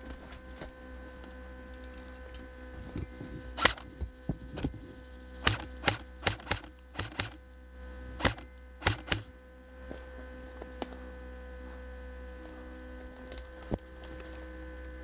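A series of irregular sharp cracks and snaps, about a dozen, mostly between about three and a half and nine seconds in, over a steady electrical hum.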